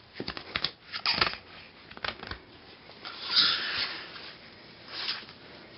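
Light clicks and rustling, then a person sniffing: a breathy hiss about three seconds in and a shorter one near five seconds.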